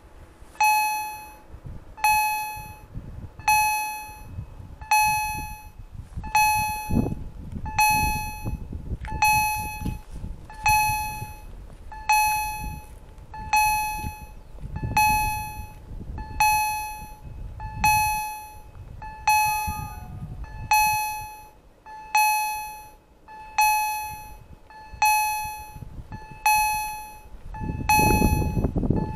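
Railway level-crossing warning bell striking steadily, about one and a half strokes a second, each a sharp ring that dies away: the crossing is closed for an approaching train. A low rumble swells under it near the end.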